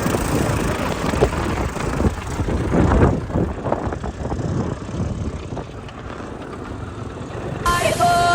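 Off-road motorcycle running, a rough, noisy rumble with rushing wind that eases a little after the middle. Music with singing cuts in abruptly near the end.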